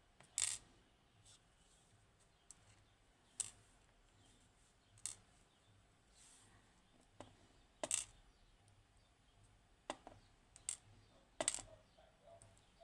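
Small metal lock parts from a gutted Yanai lock being handled and set down, making sharp metallic clinks and clicks. There are about eight of them at irregular intervals.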